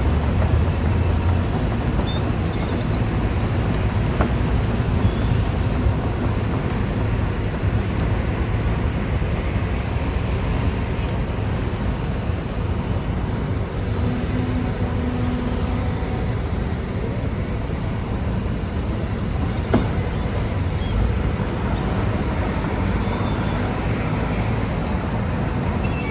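Heavy earthmoving machine's diesel engine running steadily under load, with a few brief knocks.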